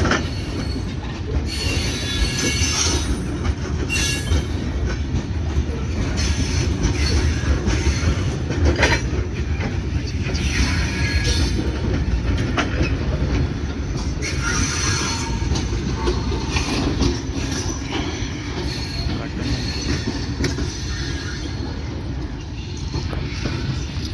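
Steel wheels of a freight train's covered wagons rumbling past on the rails, with squeals and clanks coming and going.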